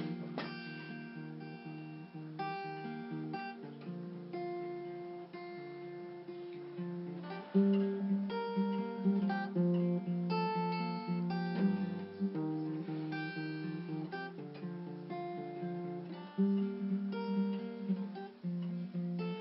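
Acoustic guitar with a capo, chords picked and strummed and left ringing into one another, with harder strokes about eight, ten and sixteen seconds in.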